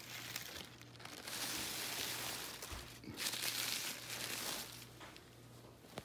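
Thin tissue paper crinkling and rustling as a hand scrunches and shifts it, in two long bouts of a second or two each, the first starting about a second in.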